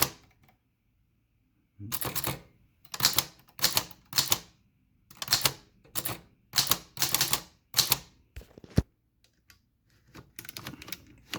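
Corona 3 folding typewriter being typed on: after a short quiet, runs of sharp typebar strikes on the platen for about seven seconds, ending in a single sharp click, then a few fainter clicks. It is a test typing of the machine with its newly fitted paper feed roller.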